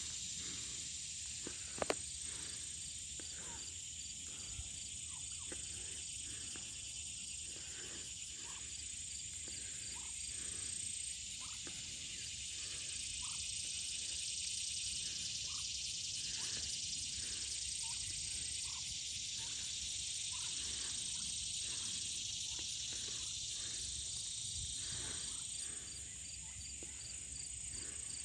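Steady high-pitched insect chorus, with faint short ticks or soft notes coming roughly once or twice a second.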